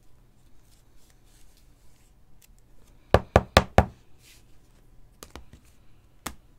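Four quick, sharp knocks from a hard plastic trading-card case being handled on a tabletop, followed by a few lighter clicks near the end.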